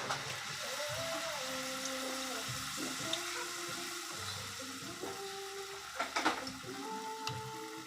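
Batter-coated saba banana slices sizzling steadily as they fry in oil, with a few sharp clicks about six seconds in, under background music.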